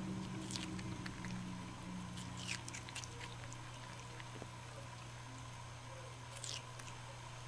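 Ring-tailed lemur chewing and biting into a piece of fruit held in its hands. Small crunches come about half a second in, in a cluster between two and three seconds, and again near six and a half seconds, over a steady low hum.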